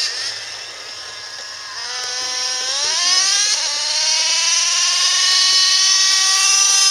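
Electric RC off-road car's motor whining: its pitch drops at the start as it slows, then climbs over about a second and a half and holds high, still rising slowly, as the car runs at speed.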